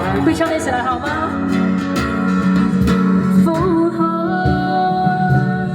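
A song playing: a voice singing a wavering melody over guitar accompaniment, steady throughout.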